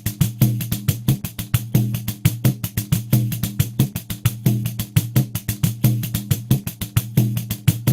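Pandeiro playing a steady rhythm at 90 BPM: quick, even jingle strokes about six a second, over deeper drum-head tones that recur with the beat.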